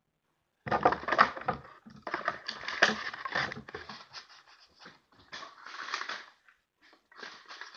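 Hands rummaging through packing material in a cardboard box: irregular crinkling and scratching that starts about a second in, with short pauses near the middle and near the end.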